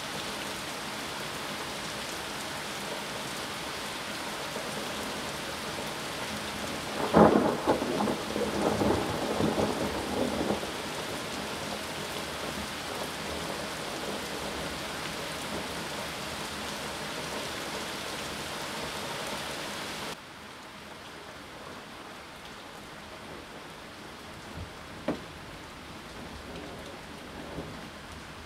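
Steady hiss of heavy rain, broken about seven seconds in by a sharp clap of thunder that rumbles on for about three seconds. Roughly two-thirds of the way through, the rain's hiss suddenly drops to a lower, duller level, and a single sharp click follows a few seconds later.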